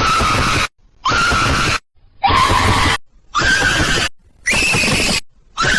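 A young girl's cartoon voice screaming, repeated high-pitched screams each under a second long with short gaps between, five in a row with another starting near the end.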